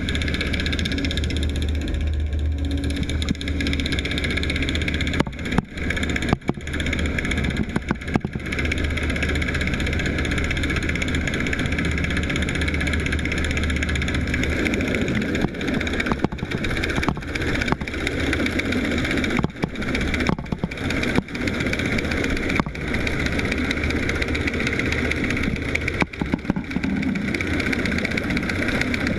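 Boat's inboard engine and turning propeller heard underwater: a steady, loud drone with a strong low hum and a stack of even, steady tones, broken by brief dips now and then.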